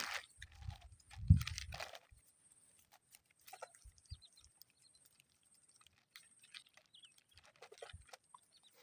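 A few seconds of rustling handling noise with one loud low thump about a second in, then quiet with a few faint, short bird chirps.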